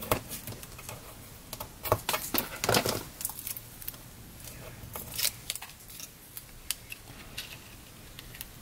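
Sticky tape and paper card being handled: an irregular run of small clicks and crackles, with a few longer scratchy sounds about two to three seconds in.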